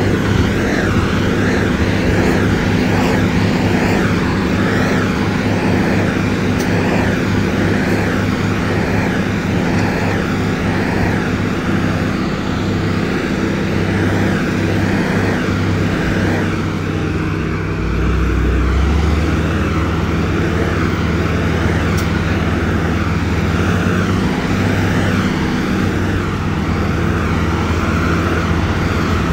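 Heavy road-building machine's diesel engine running steadily under work, its low hum shifting briefly a little past the middle.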